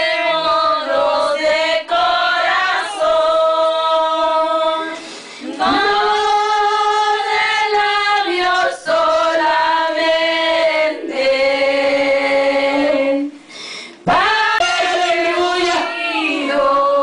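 Congregation singing a slow worship hymn, voices mostly in a woman's range, long held notes in phrases with short breaks between them.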